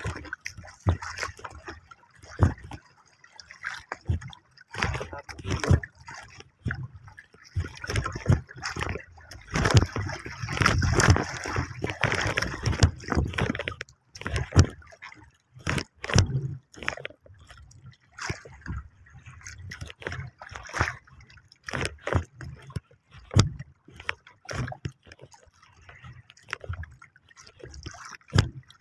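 Sea water sloshing and slapping against the hull of a small wooden outrigger canoe, in irregular splashes with a louder, busier stretch about ten seconds in.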